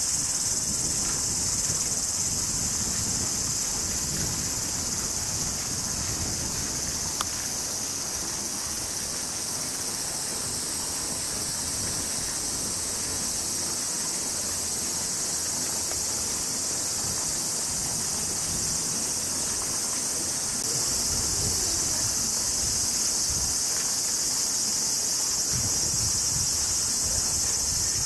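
Steady, high-pitched chorus of cicadas in summer, stepping up in loudness about two-thirds of the way through, over a low background rumble.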